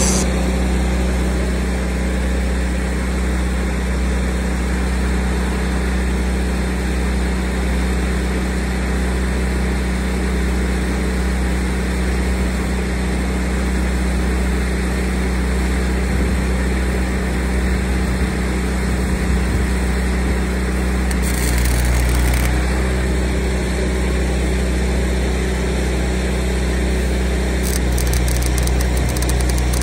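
An engine running steadily at a constant speed, its low hum unchanged throughout.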